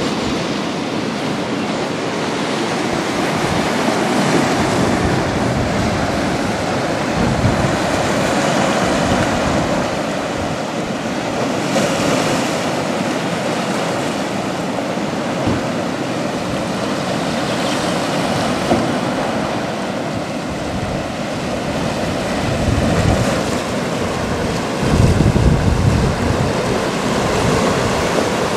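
Sea surf washing in over a rocky shore, a steady rush of breaking water. Gusts of wind buffet the microphone several times, strongest near the end.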